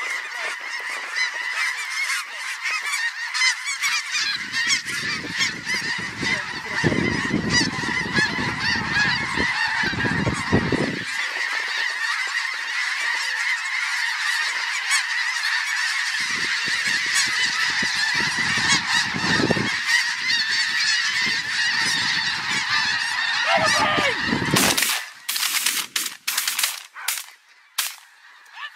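A large flock of snow geese calling continuously, a dense mass of overlapping high-pitched honks. Gusts of wind rumble on the microphone twice. Near the end the calling drops away sharply, leaving a few sharp clicks.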